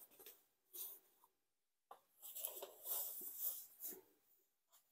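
Faint rustling of a white foam packing sheet being handled and pulled off a flat LED light pad: a short rustle about a second in, then a longer patchy stretch from about two to four seconds.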